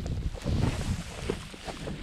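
Footsteps crunching and sliding down a steep, dry, crumbly dirt bank, with small clicks of loose soil and stones shifting underfoot. Under them is a low rumble of wind buffeting the microphone, loudest about half a second in.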